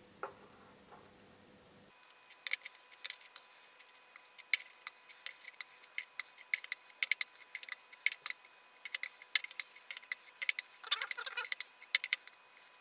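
Adjustable spanner clicking and clinking against a hex fitting on a steel engine sump pan as it is set on and turned: many small, sharp, irregular metallic ticks, coming quicker in a short cluster near the end.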